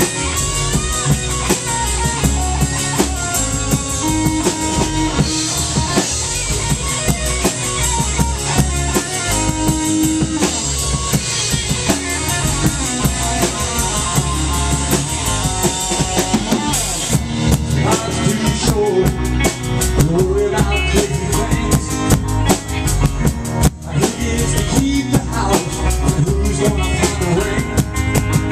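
A rock band playing live: drum kit, bass guitar and electric guitars in a steady-beat instrumental passage.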